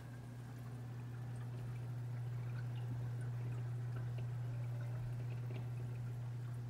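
A large aquarium's filtration running: a steady low hum with water trickling and dripping over it, with small ticks and splashes. It grows louder over the first couple of seconds, then holds steady.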